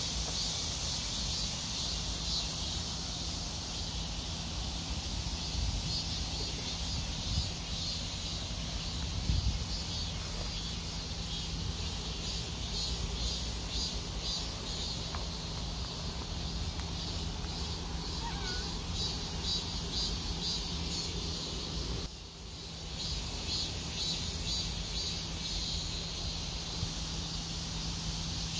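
Outdoor background of insects chirping in a fast, steady pulsing rhythm, high-pitched, over a faint steady low hum. The whole background dips briefly about 22 seconds in.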